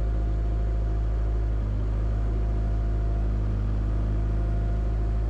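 Diesel engine of a compact construction machine running steadily at a constant speed, a low, even drone.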